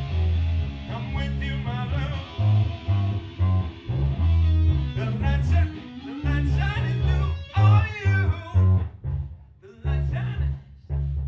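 A band playing live: guitar and bass guitar together on a bluesy riff, the bass notes starting and stopping in short blocks.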